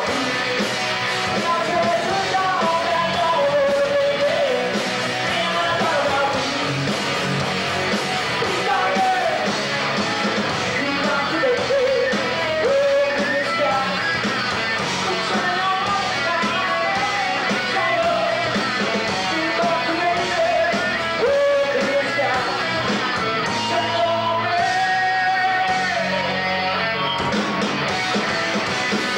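Live rock band playing a song: a singer's lead vocal over electric guitars, bass guitar and drums.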